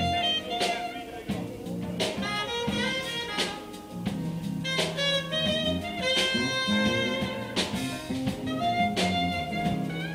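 Live band playing jazz: a saxophone carries the melody over a drum kit, with electric guitar and keyboard backing.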